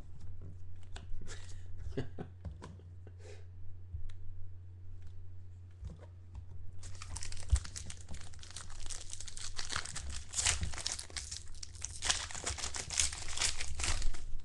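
Trading cards handled with scattered soft clicks and rustles for the first several seconds. About seven seconds in, a card pack's crinkly wrapper is torn open and crumpled, steadily and more loudly to the end. A steady low hum runs underneath.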